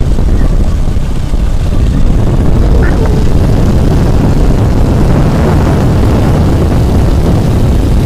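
Loud, steady rush of wind buffeting the microphone on a moving motorcycle, with the motorbike's engine running underneath.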